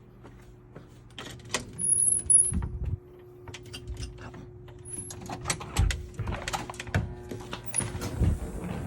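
A doorbell stuck on, humming steadily, under footsteps and the knocks and thumps of doors being handled. A brief high squeak comes about two seconds in.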